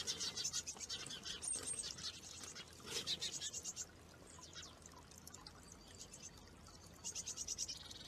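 Water trickling from a small spout into a stone bird bath. Over it, a bird's rapid high chattering call comes in three bursts: at the start, around three seconds in, and near the end. A brief thin whistle sounds about a second and a half in.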